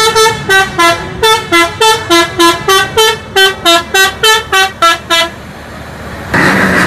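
Multi-tone musical horn on an Indonesian tour bus playing a quick tune of short notes, about three a second, stepping up and down in pitch, which stops about five seconds in. Near the end a louder, steady, noisy vehicle sound starts.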